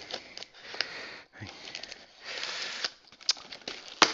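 A blade scraping and slicing through packing tape on a cardboard box, in scratchy strokes of about a second with scattered clicks, and one sharp click near the end.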